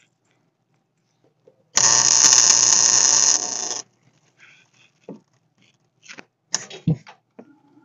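A burst of electric welding arc, about two seconds long, starting a little under two seconds in and cutting off. It comes from welding onto the broken exhaust manifold bolt in the cylinder head. A few small clicks and knocks from handling follow.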